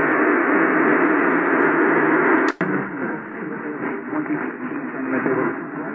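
Muffled AM static hiss from a Sangean HDR-16 portable radio's speakers, tuned between medium-wave stations with no clear signal. About two and a half seconds in there is one sharp click and a brief dropout as the tuning steps to the next channel, and after it the hiss is quieter.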